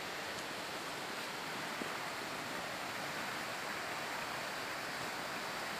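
Steady rushing of river rapids, an even hiss of moving water.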